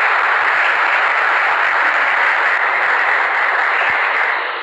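Steady, dense noise like applause from a crowd, with no pitched sound in it.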